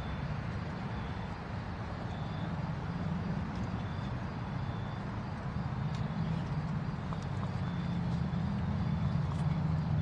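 Diesel locomotive engine running with a steady low rumble that slowly grows louder.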